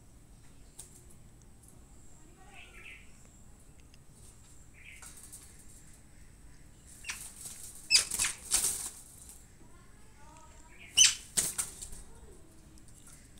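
Wire-mesh cage rattling and scraping as cats paw at it and clamber onto it, in two loud spells, about seven seconds in and again near eleven seconds.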